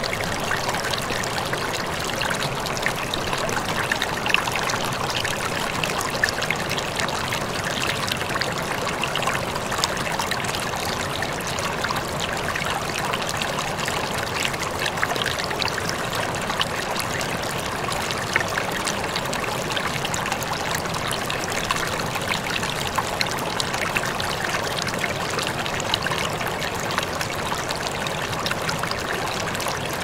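Steady running water, like a flowing stream: an even rushing and trickling with no breaks or rhythm.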